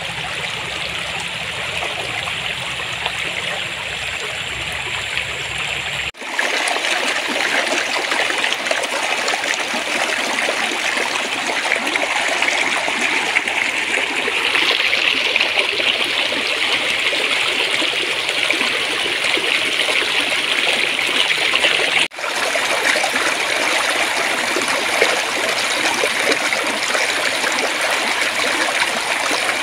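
Shallow stream water flowing and babbling steadily. It cuts out for an instant about six seconds in and again about two-thirds of the way through, coming back each time slightly louder and brighter.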